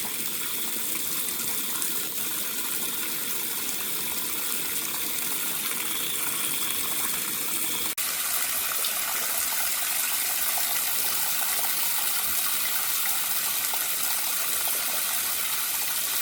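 Water running hard from a garden hose fitted with a spray head, a steady rushing hiss. It breaks off for a moment about eight seconds in, then runs on.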